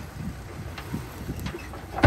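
Dump truck's diesel engine running in a steady low rumble while the truck tips its raised bed, with a few faint knocks.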